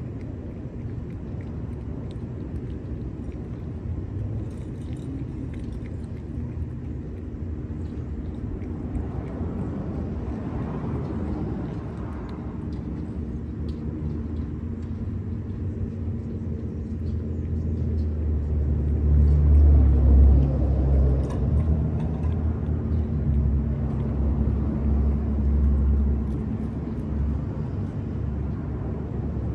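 Steady low engine rumble of a motor vehicle, with a constant hum. It swells louder for several seconds about two-thirds of the way through, then eases back.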